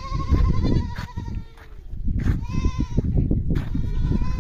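Goats bleating, about three calls in a row, over a low rumble of background noise.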